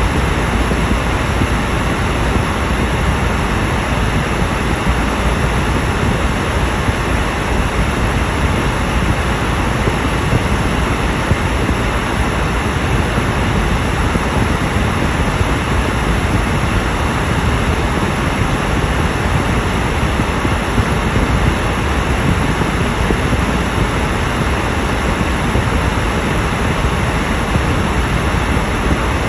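Steady road and tyre noise heard inside a car's cabin at highway speed, an even rushing sound that does not change.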